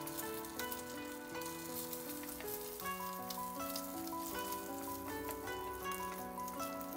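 An egg sizzling in hot oil in a stainless steel pan as a spatula pushes it around, with background music playing over it.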